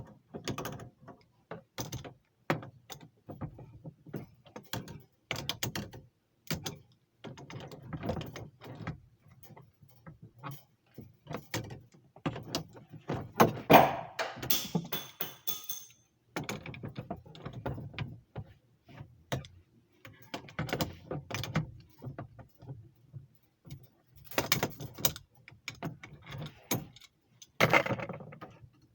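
Irregular metallic clicks, knocks and clatter of hand tools working on an air handler's refrigerant fittings, densest and loudest about halfway through.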